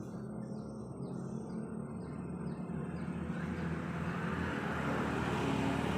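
A motor vehicle engine running steadily and growing louder through the second half, with birds chirping in the first half.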